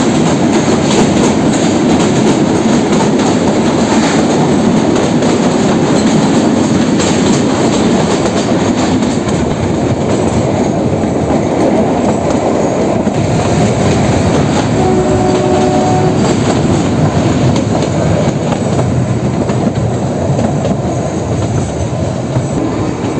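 Kalka–Shimla narrow-gauge toy train running, heard from one of its coaches: a steady rumble and clatter of wheels on the rails. It is fullest at first while inside a tunnel and lighter once out in the open. A brief steady tone sounds about fifteen seconds in.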